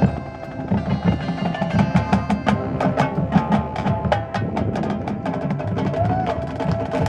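High school marching band playing: held notes over many quick, sharp percussion strikes, busiest in the middle.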